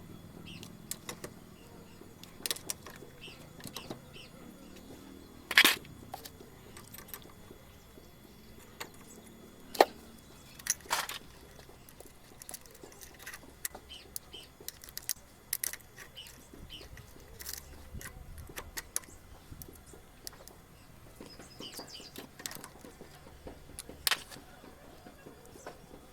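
Irregular clicks, taps and metallic knocks of hand tools working on a Chinese 120cc engine, with the loudest knocks about five and ten seconds in.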